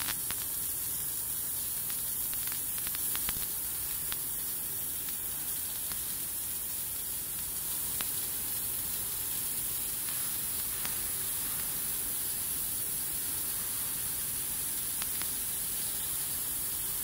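Steady high hiss of a Han's Laser 6 kW fiber laser cutting 16 mm mild steel at 1.4 m/min: the assist-gas jet blowing through the cut, with a few faint ticks from the spark stream.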